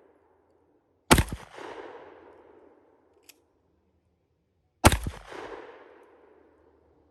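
Two single pistol shots from a Glock, about four seconds apart, each with a ringing echo that dies away over a second or so. A faint short click falls between them.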